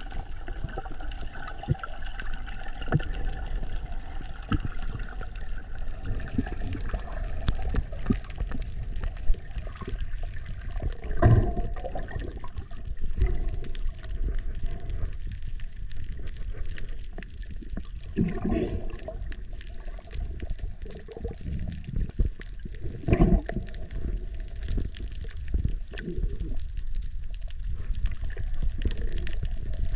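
Seawater sloshing and gurgling around the camera in the water, a steady low rumble with a few louder surges several seconds apart.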